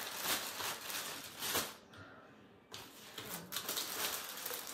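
Plastic packaging rustling and crinkling as it is handled, in irregular bursts with a short lull about two seconds in.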